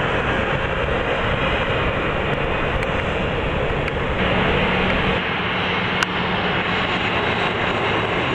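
Jet airliner engines running at high thrust on the takeoff roll: a steady, dense noise of engine and rushing air. The sound shifts about four seconds in, and there is a single sharp click near six seconds.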